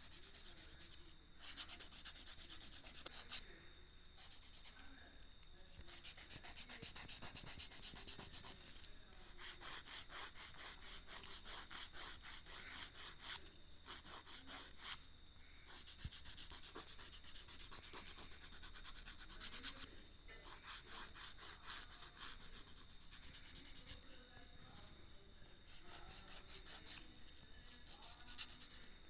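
A nail file rasping back and forth across a plastic nail tip in rapid strokes, shaping it. It is faint and comes in bouts with brief pauses between them.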